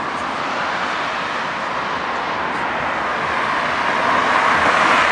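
Road traffic: a car approaching along the road, its tyre and engine noise growing slowly louder.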